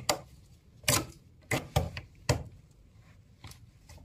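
Pliers clicking and snipping at a refrigerator's copper capillary tube, a series of sharp clicks, about five or six with uneven gaps. The tube is being cut open to check for leftover refrigerant, and no gas hiss follows.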